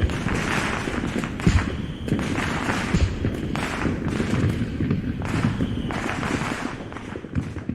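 Dubbed-in fireworks sound effect: a dense barrage of booms and crackling, with several louder bangs standing out, beginning to fade near the end.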